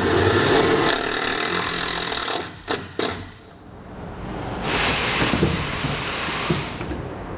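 Cordless drill running for about two and a half seconds, driving a self-tapping screw into the truck's sheet-metal body to ground the wiring kit's ring terminal, then two sharp clicks. About five seconds in comes a second stretch of noise lasting roughly two seconds.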